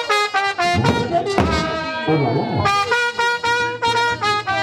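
Brass band music: a tune of short repeated notes and a few held notes.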